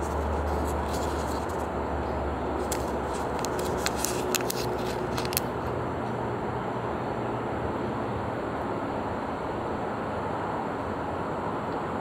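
A pleated paper baking cup being peeled off a soft sweet potato snack, a handful of short crisp crackles, over a steady outdoor background rumble.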